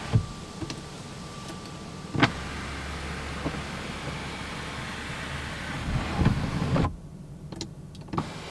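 Genesis G90's power panoramic sunroof moving: a steady low motor hum with sharp clicks and knocks from the mechanism. A cluster of knocks comes near the end.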